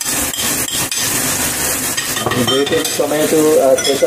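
Gravy sizzling in a frying pan while a wooden spatula stirs and scrapes it, in strokes about three a second in the first half. From about halfway a wavering voice-like sound is heard over the sizzle.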